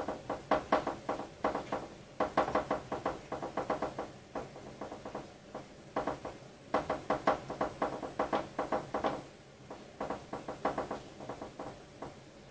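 Z-axis lead screws of a RepRap Wilson TS 3D printer being turned by hand to raise the X carriage: rapid runs of ringing clicks, several a second, coming in spurts of one to three seconds with short pauses between turns.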